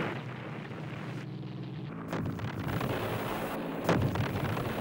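Battle sound of explosions: a continuous low rumble with two sharp bangs, one about two seconds in and a louder one near the end.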